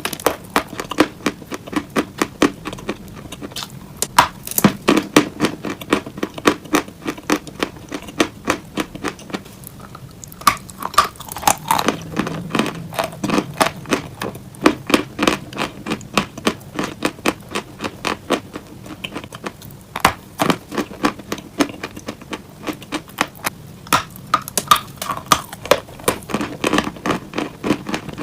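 Close-miked ASMR crunching on fake cupcakes: rapid, sharp crisp crunches and clicks, several a second, with brief lulls between bursts.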